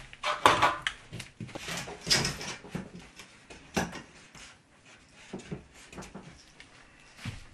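Irregular knocks and scraping of wooden ceiling boards being handled and pushed into place, busiest in the first couple of seconds, then sparser single knocks.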